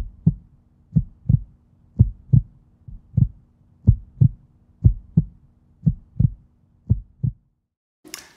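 Heartbeat sound effect: slow, steady double thumps, about one lub-dub pair a second, over a faint steady hum. The beating stops about half a second before a voice comes in at the very end.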